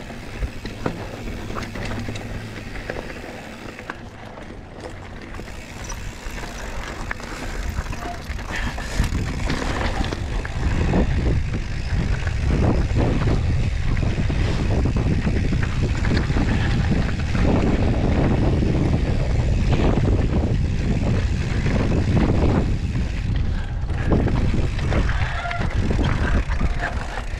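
Mountain bike ridden over rough trail: tyres rolling and crunching over rock and dirt, with frequent knocks and rattles from the bike and wind on the microphone. It grows louder and busier about ten seconds in as the speed picks up.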